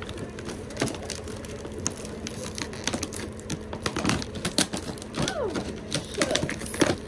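Irregular clicking and clacking of ball ornaments in a clear plastic tube, knocking against each other and the plastic as the tube's red lid is twisted open and the tube is handled.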